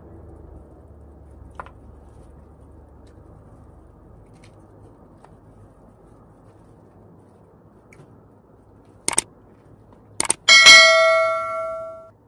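Subscribe-button overlay sound effect: two mouse clicks about a second apart near the end, then a bright notification-bell ding that rings out and fades over about a second and a half.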